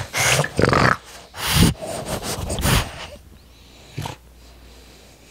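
French Bulldog puppy breathing and sniffing right at the microphone: a run of short, noisy, close-up bursts over the first three seconds, then quieter, with one more short burst about four seconds in.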